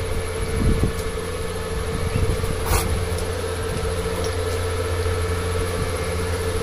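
Steady low mechanical hum, with one short click near the middle.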